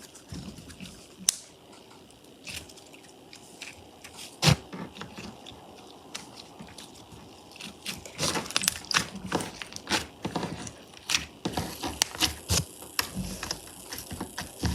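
Slime being squished and pressed by hand, giving sharp crackling pops and clicks that come thicker and faster in the second half.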